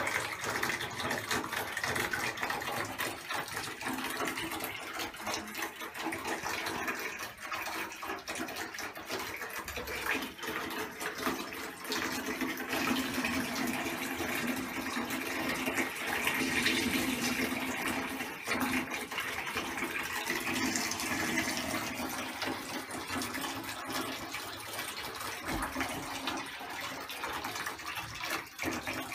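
Hot water running steadily into a bathtub as it fills, heard with the tub's lid closed.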